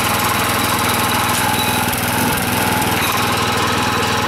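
Neva MB-2 walk-behind tractor's single-cylinder petrol engine running steadily under load, pulling a potato planter along a furrow.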